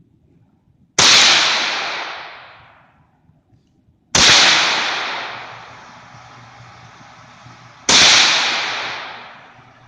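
.22 LR rifle fired three times, roughly three to four seconds apart. Each shot is a sharp crack followed by a long echo that fades over about two seconds.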